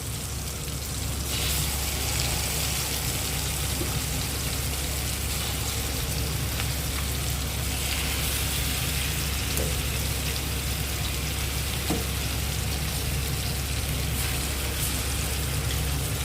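Marinated chicken pieces frying in butter in a pan: a steady sizzle with a few small pops, over a steady low hum.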